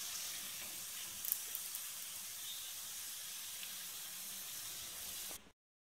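Batter-coated spiral potatoes on sticks frying in a little oil, a steady soft sizzle, with a light tap about a second in. The sound cuts off abruptly near the end.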